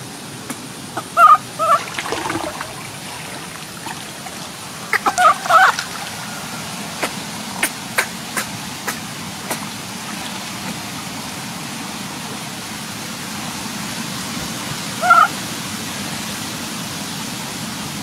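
Baby macaque giving short, high coo calls in small clusters, about a second in, again around five seconds and once more near fifteen seconds, over a steady hiss; a few sharp clicks come around the middle.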